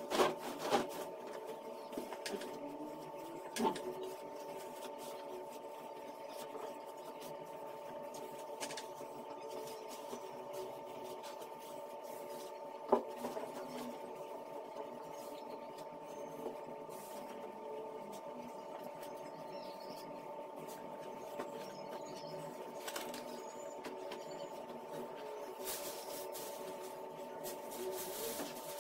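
A steady mechanical hum with several fixed tones, with bed linen being handled over it: pillows and sheets rustling and a few soft thumps, one near the start, one a few seconds in and one about halfway.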